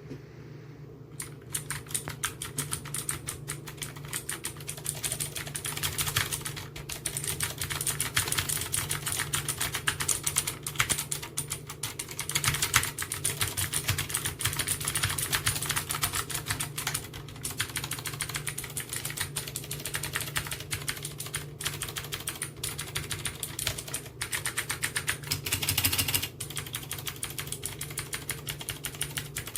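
Rapoo V500 Pro mechanical keyboard with clicky blue switches being typed on fast and continuously: a dense, steady stream of key clicks that starts about a second in.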